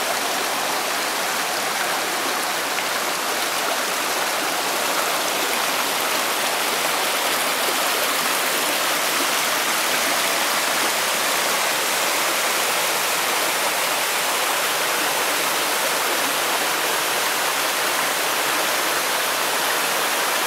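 Rocky mountain stream rushing over boulders and small cascades: a steady, even rush of water that holds the same level throughout.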